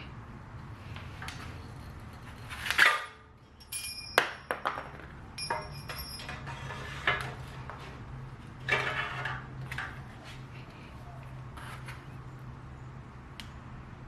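Small metal bicycle headset parts clinking and knocking as they are handled and test-fitted, two of the clinks ringing on briefly, with a couple of louder rustles in between.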